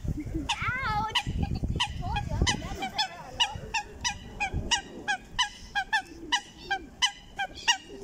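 Goose honking: a series of short, loud honks, about two a second in the second half. A low rumble runs under the first few seconds.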